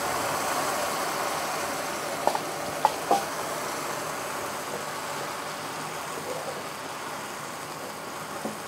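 Onion gravy sizzling and bubbling in a hot pan as the broth deglazes it, slowly getting quieter. A few sharp knocks of a spoon against the pan come two to three seconds in, while the brown bits are scraped up.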